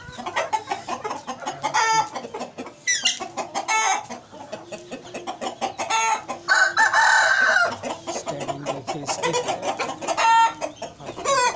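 Aseel chickens clucking in short calls, with a rooster crowing once for just over a second, about six and a half seconds in.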